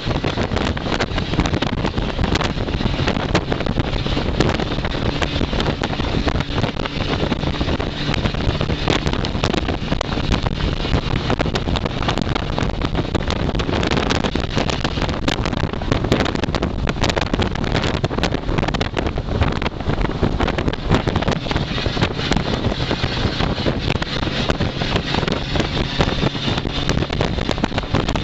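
1963 Ford Thunderbird race car's engine running at speed on track, heard from the open cockpit. Wind buffets the microphone over a steady roar.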